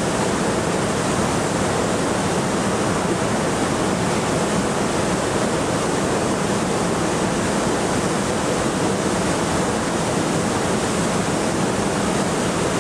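A steady, even rushing hiss with no breaks or changes.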